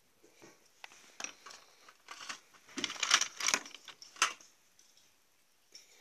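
Handling noises from paper and craft tools: irregular rustles, scratches and short clicks. They are busiest about three seconds in, and a sharp click comes a little after four seconds.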